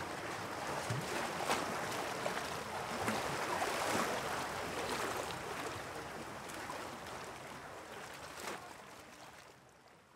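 Rushing water ambience, with a few sharp clicks and knocks scattered through it. It fades out slowly over the last few seconds.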